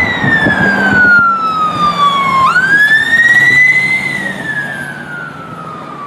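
Ambulance siren on a slow wail. The pitch falls, swings back up about halfway through, then falls again as it grows fainter.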